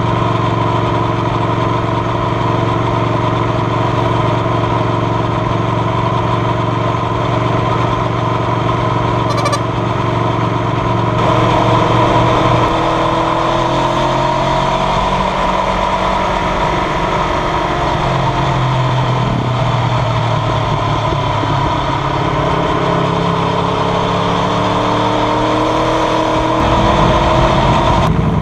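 Aprilia Tuono V4R's V4 engine running under way, heard from the rider's seat with wind rush. The engine note holds steady at first, changes abruptly about eleven seconds in, and then rises and falls with the revs through the rest.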